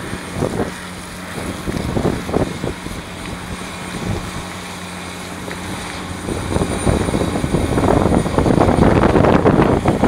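Sandvik QJ341 mobile jaw crusher running: a steady engine hum under irregular clattering of rock. About six and a half seconds in, the clatter grows louder and denser.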